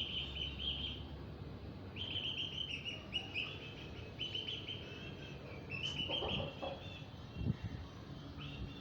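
Aseel chicks peeping: bursts of rapid, high chirping notes, repeated several times, with a few dull thumps about two-thirds of the way through.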